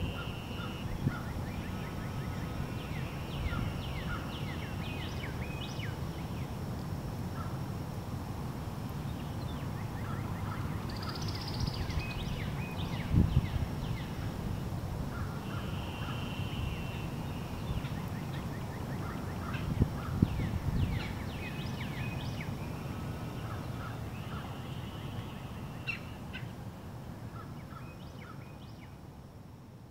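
Several wild birds singing and calling at once: short chirps, trills and repeated phrases overlapping, over a steady low rumble. Two brief low thumps come about 13 and 20 seconds in, and the sound fades out near the end.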